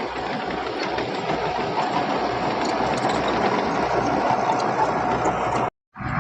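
Diesel engine of heavy earthmoving machinery running steadily and slowly growing louder. It cuts out abruptly for a moment near the end, then returns louder.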